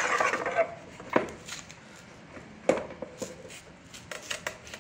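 Bosch PTC 640 manual tile cutter scoring a 7 mm glazed tile: a short scratchy scrape of the scoring wheel across the glaze at the start, then sharp knocks about a second in and near three seconds, with lighter clicks of the carriage and handle on the rail.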